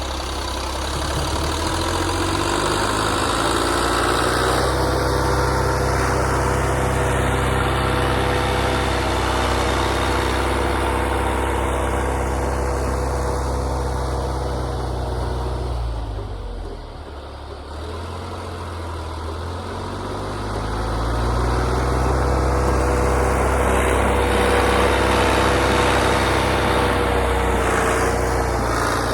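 Old John Deere backhoe engine running steadily under throttle while pushing snow. It eases off briefly about halfway through, then comes back up to speed.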